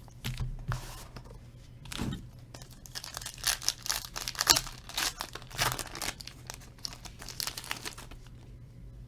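Packaging of a sealed trading-card box being torn open and crumpled: a run of crackling tears and crinkles, busiest in the middle, with a soft knock about two seconds in. It dies down about a second before the end.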